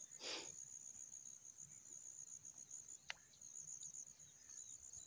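Faint, steady chirping of crickets: a continuous high trill. A short rush of noise comes just after the start, and one sharp click about three seconds in.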